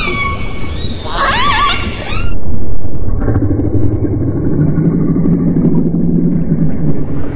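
Killer whale calls: a high falling whistle, then a warbling call that wavers up and down and stops abruptly about two seconds in. A deep underwater rumble follows, louder than the calls, with a low steady hum under it.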